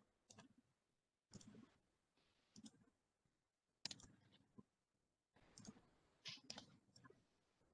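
Faint computer mouse clicks, a scattered run of them, roughly one a second, against near silence.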